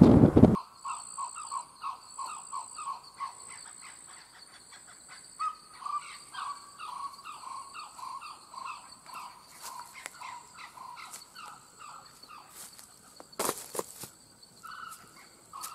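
Wind buffeting the microphone of a moving vehicle cuts off within the first second. Then comes an evening bush chorus: rapid repeated chirps at one pitch, a few a second, over a steady high insect trill, with one brief loud noise near the end.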